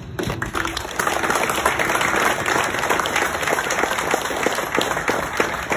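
A small crowd applauding: many hands clapping together in a steady patter, starting just after the beginning.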